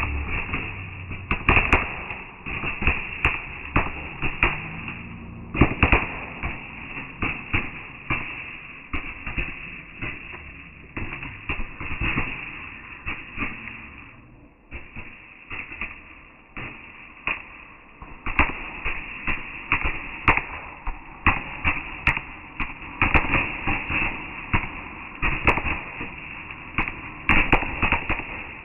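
Fireworks going off: a rapid, irregular series of sharp bangs and cracks, with a brief lull about halfway through.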